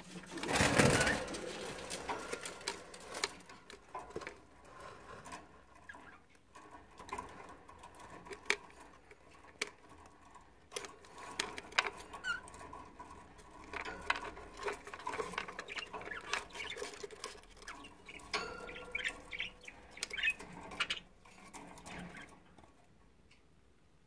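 Budgerigar nestlings stirring on wood shavings inside a wooden nest box: scrabbling, scratching and small clicks, with a few brief faint chirps. A loud clatter of the box being handled about a second in.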